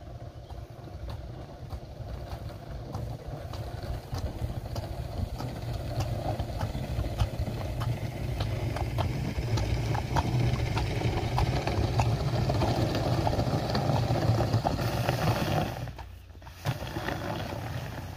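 Plastic barrel and tarp dragged on a rope over asphalt behind a walking draft horse: a rough scraping rumble full of small knocks, louder around the middle, with a brief drop near the end. Shod hooves clop on the pavement.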